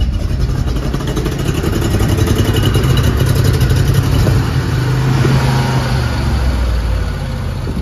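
An engine running steadily, a loud low drone with a fast even beat that eases slightly near the end.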